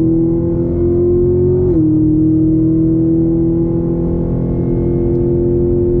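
Chevrolet Camaro ZL1's supercharged 6.2-litre V8, heard from inside the cabin, pulling under acceleration. Its pitch climbs, drops suddenly about two seconds in as the transmission upshifts, then climbs again.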